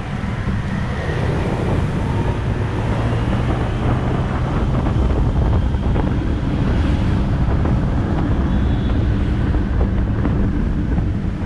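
Wind rushing over the microphone with a motorbike's engine and tyre noise, steady while riding at speed.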